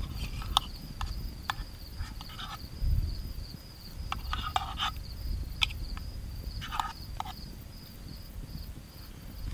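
Night insects trilling steadily in a high, pulsing tone, over the sharp pops and crackles of a wood campfire, with the densest bursts of crackling about four and a half and seven seconds in.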